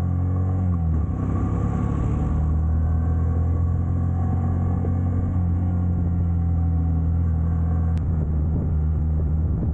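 Motorcycle engine running at a steady speed while riding, its pitch dipping slightly about a second in.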